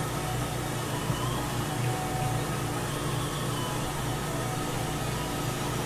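Steady low hum of restaurant kitchen machinery, a constant drone with a few faint steady tones above it.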